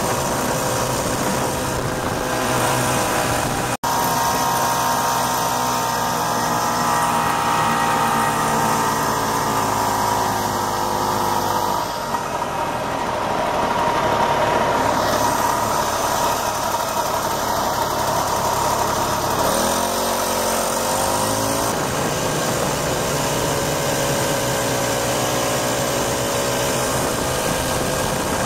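1967 Ski-Doo Olympique's 250 cc single-cylinder two-stroke engine running under way, its pitch shifting with the throttle and rising in a rev about two-thirds of the way through. The sound breaks off for an instant about four seconds in.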